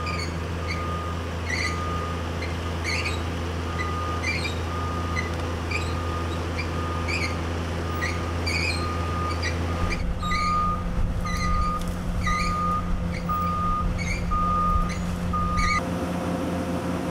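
Excavator's diesel engine running with a back-up alarm beeping about twice a second. The engine note changes about ten seconds in, and the beeping stops near the end.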